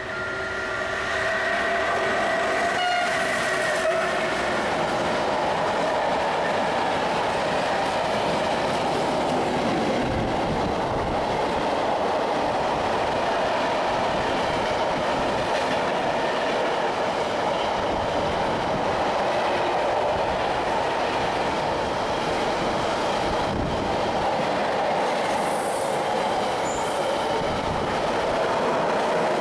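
An electric-hauled intermodal freight train passing close at speed. In the first few seconds the locomotive goes by with a held tone of several notes that drops as it passes. Then comes a steady rumble and clatter of container and trailer wagons rolling over the rails, with occasional clanks.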